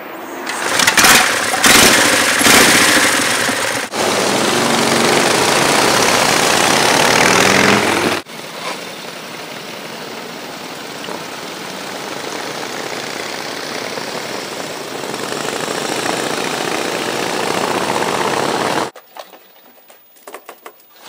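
Pre-1916 vintage motorcycle engines across several shots. An early Indian V-twin starts and runs with loud, irregular firing strokes. Then motorcycles run along the road, growing slowly louder before cutting off abruptly near the end.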